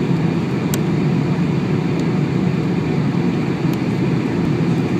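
Cabin noise inside a Boeing 747 on landing approach with the flaps extended: a steady low rumble of engines and rushing air.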